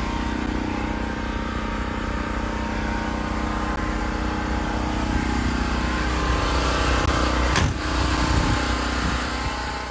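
A vehicle engine idling with a steady low hum. A brief sweeping noise comes about seven and a half seconds in.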